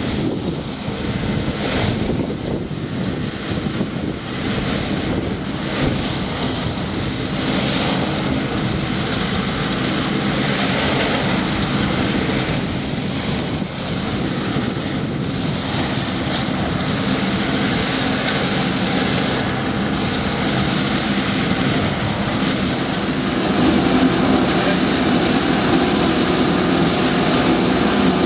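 BS2000 truck-mounted vacuum sweeper running steadily: a machine drone with rushing air and dry fallen leaves being sucked into the intake nozzle and up the hose. It gets a little louder about 23 seconds in.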